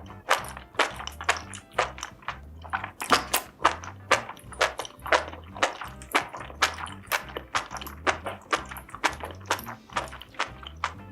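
Close-miked eating sounds: wet, crunchy chewing and biting, many sharp clicks a second. A low steady beat of background music runs underneath.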